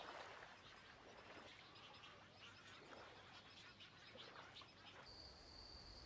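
Faint outdoor wildlife ambience: scattered soft bird chirps, then from about five seconds in a steady high-pitched insect drone.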